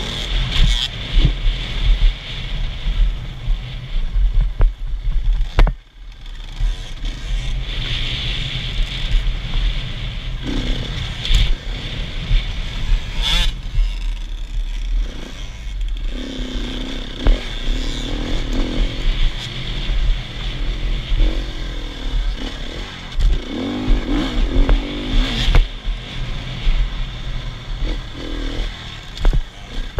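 Enduro motorcycle engine heard from the bike itself while riding a rough gravel dirt track, its revs rising and falling through the turns, with clattering and scraping from the bike on the loose surface.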